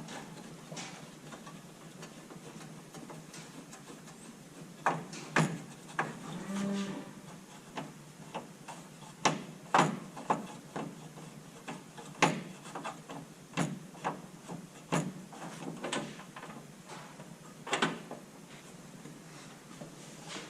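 Irregular clicks and knocks of hand tools and metal fittings on a tractor dash as the speedometer cable fittings are unscrewed. There is a brief low pitched sound about six and a half seconds in.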